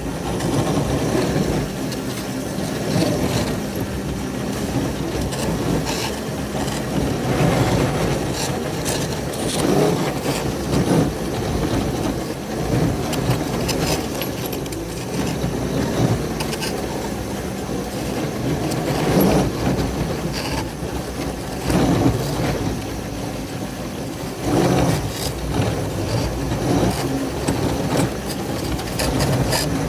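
Locomotive engines running steadily under load, with rail cars rolling, as two engines push through deep snow.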